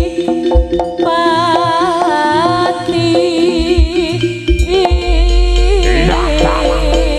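Live jaranan ensemble music: a wavering melody line over repeated low drum beats, with a deep sustained tone coming in about five seconds in.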